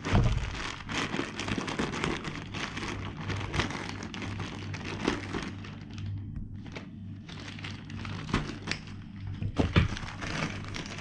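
Parcel packaging crinkling and rustling as it is cut open with scissors and handled, with a loud knock right at the start and a few sharp clicks near the end.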